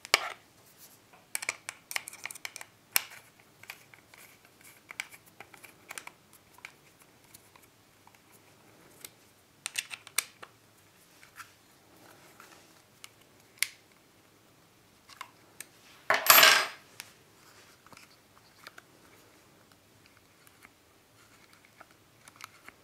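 Plastic and metal parts of a Husqvarna 55 chainsaw's chain brake clicking, knocking and rattling as they are handled and fitted into the plastic chain guard housing by hand. One louder burst of clatter, lasting under a second, comes about two-thirds of the way through.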